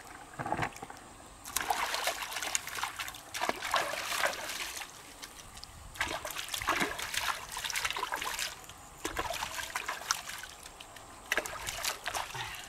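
Splashing and sloshing of shallow muddy water as someone wades through a flooded rice paddy, in three irregular bouts a few seconds each.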